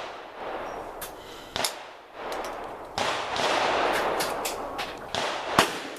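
Several rifle shots at irregular intervals and of differing loudness, each cracking sharply and trailing off in echo, with the loudest near the end.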